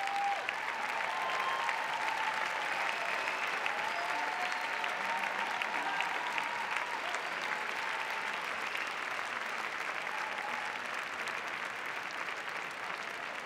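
Large audience applauding steadily, with a few voices calling out over the clapping in the first half.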